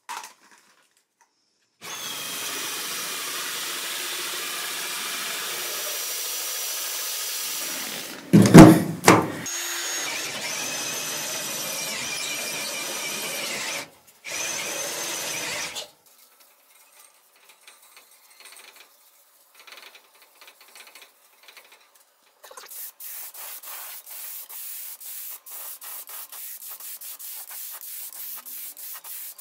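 A power drill with a countersink bit whines steadily as it cuts holes in a painted sheet-metal housing, with one loud knock about eight seconds in. From about two-thirds of the way through, an air-fed paint spray gun hisses in quick, rapid pulses.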